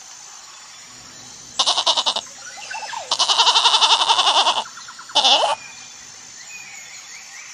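A goat kid bleating three times in a quavering voice; the middle bleat is the longest.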